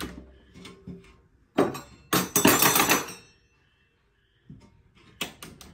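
A few knocks, then a loud clatter lasting about a second, and three sharp clicks in quick succession near the end.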